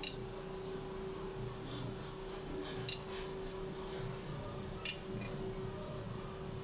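Steak knife and fork cutting steak on a ceramic plate: about three sharp clinks of metal cutlery against the plate over a steady low hum.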